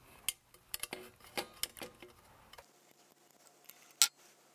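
Light clicks and taps of an aluminium Actobotics channel, plastic feet and small socket head screws being handled and fitted together on a wooden bench, with one sharp tap about four seconds in.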